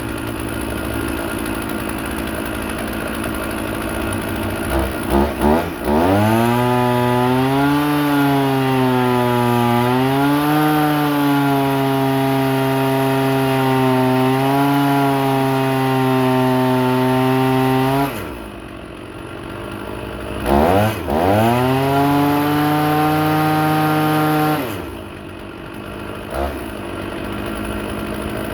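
Stihl MS460 two-stroke chainsaw engine on a brake-loaded test stand, running at a lower speed, then held at wide-open throttle for about twelve seconds. Its pitch sags and recovers as the brake load is adjusted, pulling it down to about 8,000 RPM. It drops back, runs at full throttle again for about four seconds, then falls back to a lower speed. The saw is being worked under load to heat it up and reproduce a run problem that shows when it is warm.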